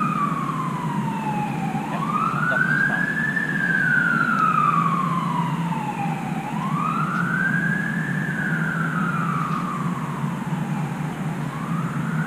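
A siren wailing, its pitch rising quickly and then falling slowly, about three cycles of roughly four and a half seconds each, over a steady low rumble.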